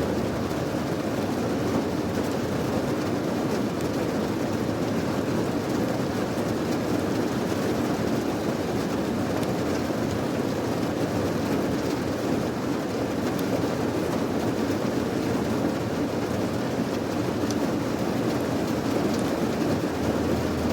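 Steady rain: an even rushing noise without breaks or single drops standing out.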